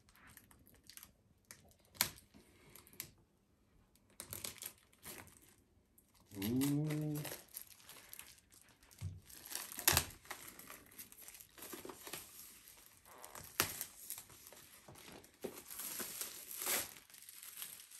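Plastic packaging crinkling and tearing as it is peeled off a boxed book, with a few sharp snaps among the rustling. A short hummed voice sound comes about six seconds in.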